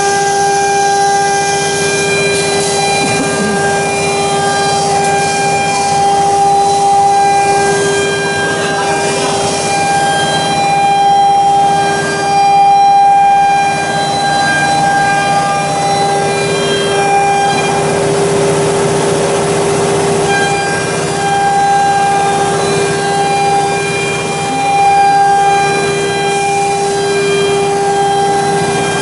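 OMNI 1325 CNC router with a carousel tool changer running: a steady machine whine that holds one pitch throughout, with a higher tone that drops in and out.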